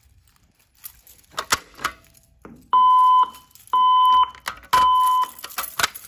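Fire alarm speakers of a Farenhyt IFP-300ECS voice evacuation system sounding the evacuation tone: three even, steady beeps about a second apart in the temporal-three pattern, signalling a building alarm before the voice message. A few sharp clicks and knocks come before the beeps.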